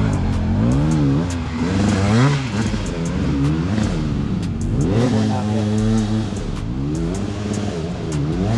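Trail dirt bike engines revving up and down over and over, the pitch rising and falling about once a second, with light clicks and clatter over them: riders trying to power up a steep dirt climb that they can't get up.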